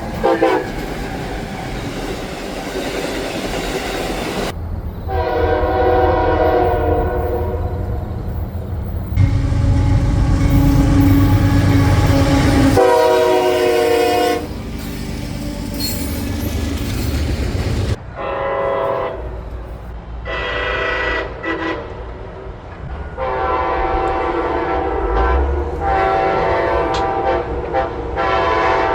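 Locomotive horns sounding a series of long and shorter blasts over the low rumble of a passing train. About eighteen seconds in the sound cuts abruptly to a different horn, which gives two blasts and then a long one.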